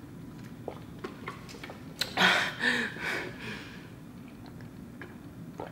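A person gulping almond milk straight from the carton: small swallowing clicks, with a louder breathy vocal sound about two seconds in.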